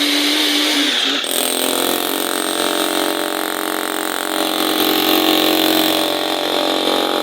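Jackhammer running steadily at full power, a dense buzzing hammer note whose tone shifts about a second in.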